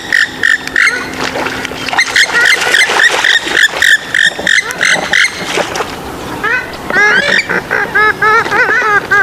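Swamphen and moorhen calls, played back as a lure. A rapid series of short repeated call notes is followed, after a brief lull, by a fast run of short notes that each rise and fall, starting about six and a half seconds in.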